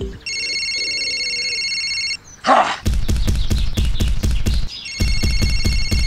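Mobile phone ringing as a cartoon sound effect: a high electronic trilling ringtone, a short whoosh, then a rapid pulsing vibration buzz of about five or six pulses a second, with the ringtone coming back over the buzz near the end.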